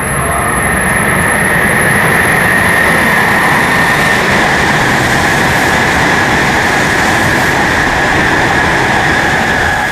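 W7-series Shinkansen passing through the station at high speed: a loud, steady rush of wind and wheel-on-rail noise with a steady high whine on top. It starts abruptly at full loudness.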